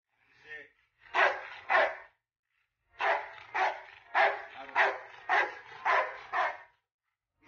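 A large black dog barking sharply at a man's hand raised toward a child: protective warning barks. They come as two barks about a second in, a short pause, then about seven more in quick, even succession.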